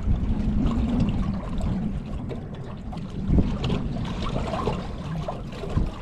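Wind buffeting the microphone, a steady low rumble, with water sloshing and crackling against the boat.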